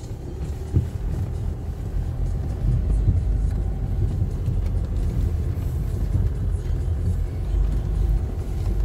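Hyundai Santa Fe heard from inside the cabin while driving over a rough dirt track: a steady low rumble of engine and tyres, with a sharp knock about a second in as it goes over a bump.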